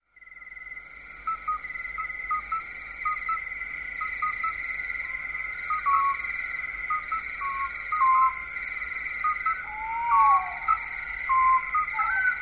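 Night ambience: a steady high trill of crickets, with short stepped animal calls repeating every second or so and, from about ten seconds in, a few longer sliding calls.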